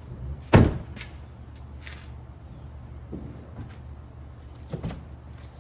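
A loud thump about half a second in, then a few lighter knocks, over a steady low hum.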